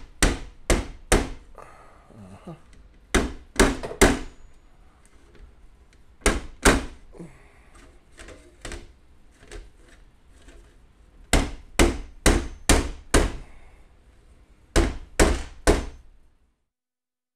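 Plastic-faced mallet tapping the brass bell flare of a Slingerland single-piston bugle as it sits rim-down on a marble plate, the final rim straightening. The taps come in quick groups of three to five with short pauses between, then stop abruptly about a second before the end.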